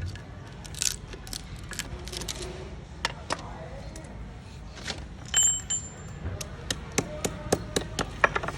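Light metallic clicks and taps from hand work on the compressor motor's parts, with a brief ringing clink about halfway through. Near the end comes a quicker run of sharp taps, about three or four a second.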